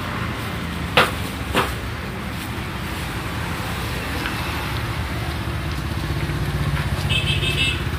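A motor vehicle engine running steadily, growing a little louder near the end. Two sharp knocks come about a second and a second and a half in, and a brief high-pitched whine sounds near the end.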